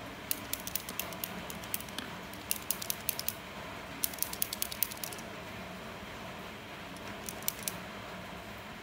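Paint marker being shaken, its mixing ball rattling inside as quick runs of sharp clicks, in several short bursts, over a steady background hiss.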